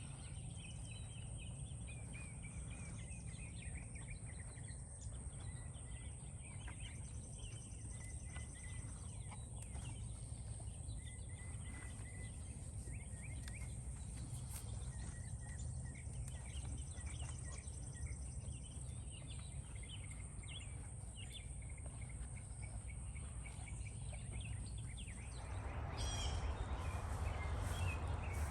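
Outdoor ambience of birds chirping and calling repeatedly over a steady low rumble, with a thin high-pitched whine that stops near the end.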